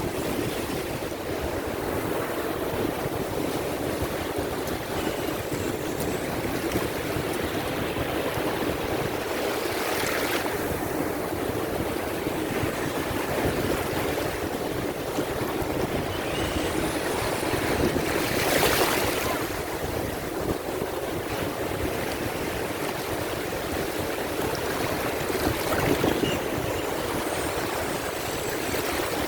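Sea waves washing in with wind on the microphone: a steady rushing that swells up three times, about eight seconds apart.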